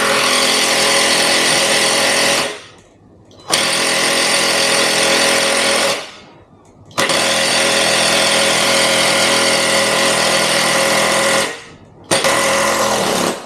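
Impact driver hammering on a tight motorcycle rear axle nut in four long bursts with short pauses between. The nut is done up to 230 Nm and is being broken loose.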